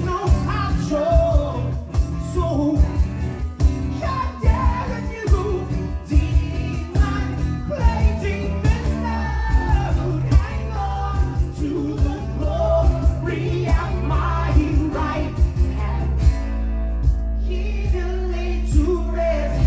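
A live rock band playing unplugged: strummed acoustic guitars with a sung lead vocal, held low bass notes coming in about halfway through.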